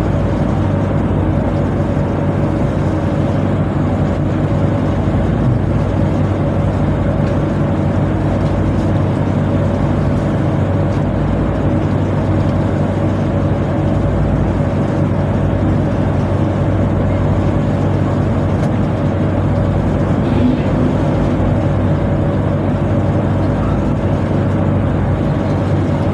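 Tugboat's diesel machinery running with a steady low drone and a faint fixed whine above it, unchanging throughout.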